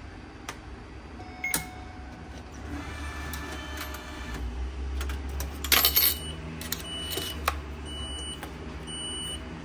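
Railway ticket vending machine issuing a ticket: a click or two, a whirring of the printing and feed mechanism, a loud clatter about six seconds in, then a series of short high beeps as the ticket comes out of the slot.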